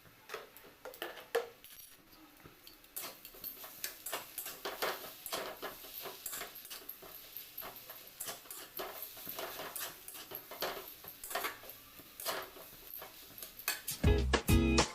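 Irregular light clicks and taps of kitchen utensils on cookware during food preparation. Guitar background music starts near the end.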